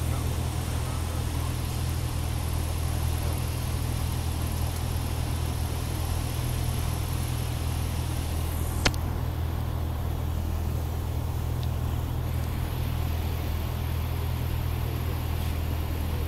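Single-engine Cessna's piston engine and propeller droning steadily, heard inside the cabin on final approach to landing, with a strong low hum and airflow hiss. A single sharp click comes about nine seconds in, after which the high hiss lessens.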